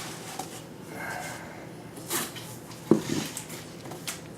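Handling noise from hard plastic graded comic slabs being moved and set down: light rustling with a few sharp knocks, the loudest about three seconds in.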